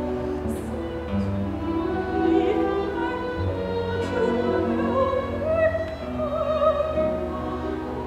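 A soprano singing with a wide vibrato over a symphony orchestra's sustained strings; her line climbs and is loudest in the second half.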